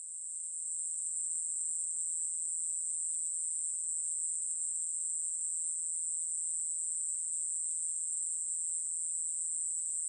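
Male 여치베짱이 conehead katydid singing: one continuous, high, even buzzing song with no breaks, which swells back in over the first second.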